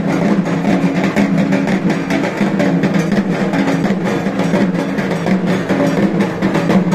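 Music with fast, continuous drumming over a sustained low tone.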